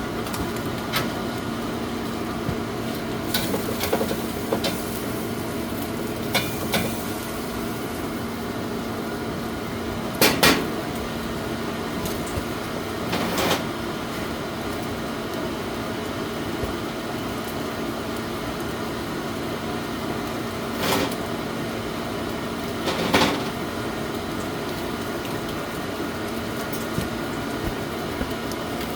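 Steady mechanical hum with scattered clinks and knocks of dishes and utensils; the loudest are a quick double knock about a third of the way in and another knock past the three-quarter mark.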